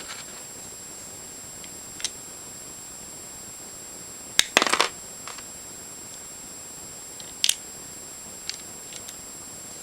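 Small plastic puzzle pieces clicking and tapping together as they are handled and set in place on a partly reassembled Eastsheen 4x4, with a quick cluster of clicks about halfway through and a few single clicks.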